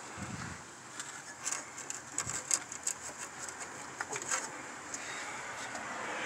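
Faint rustling and scattered light clicks of a hand moving old hoses and wiring in an engine bay, with a couple of soft low thumps.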